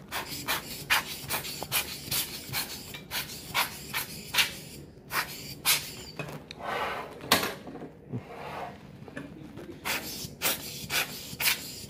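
Hands rubbing, wiping and handling desktop PC parts: irregular rubbing and scraping with sharp clicks and knocks, about one or two a second, and a longer swishing rub near the middle.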